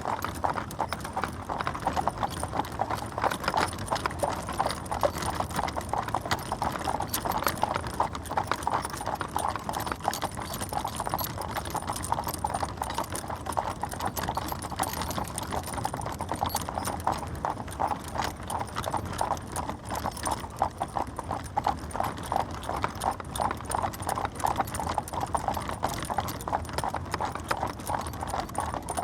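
Horse-drawn carriage on the move: a horse's hooves clip-clopping in a steady, continuous rhythm.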